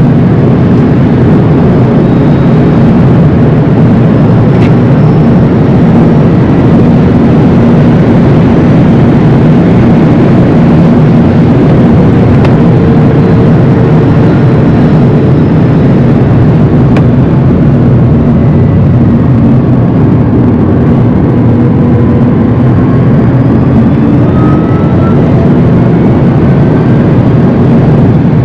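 Rimac Nevera electric hypercar at speed, heard from inside the cabin: a loud, steady rumble of tyre, road and wind noise. A faint whine from the electric motors rises in pitch about three-quarters of the way through.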